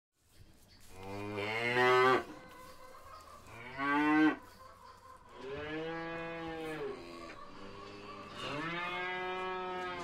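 A group of cattle mooing one after another: four long moos, the first two the loudest.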